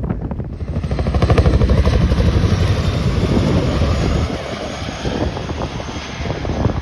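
Boeing CH-47 Chinook's twin tandem rotors beating as it flies over, a rapid, steady thudding. It grows loud about a second in and eases off after about four seconds.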